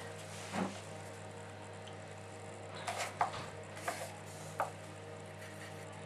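Steady low electrical hum, with a few soft, brief handling noises from a hand, felt-tip marker and paper: one about half a second in and a cluster between about three and four and a half seconds.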